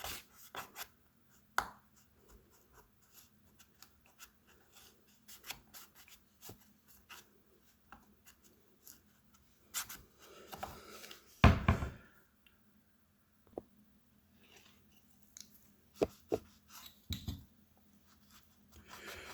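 Scattered clicks, taps and light rubbing from hands working over a plastic-sided radiator, cleaning it around a crack before patching. One louder knock comes about eleven and a half seconds in.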